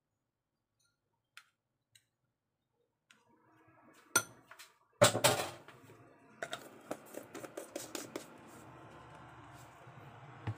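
Kitchen utensils and a jar handled on a stone countertop. A sharp clink comes about four seconds in and a louder knock about a second later, then a run of small clicks and taps as the jar's lid is put back on.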